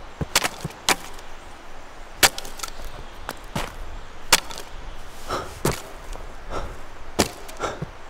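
A series of about ten sharp knocks and cracks at uneven intervals, the loudest a little over two seconds in.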